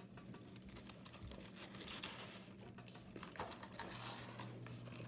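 Faint scattered clicks and light rustling over a steady low hum.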